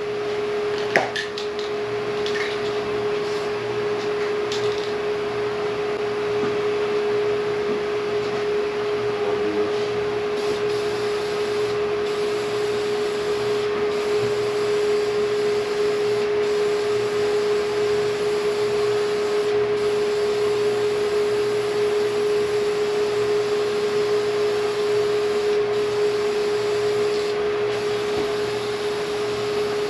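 Aerosol can of Duplicolor vinyl and fabric flat black paint hissing in long sprays with a few brief breaks, over a steady hum. A sharp click about a second in.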